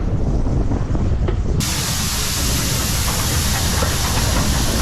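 Steam locomotive venting steam: a loud, even hiss starts suddenly about a second and a half in, over a low rumble.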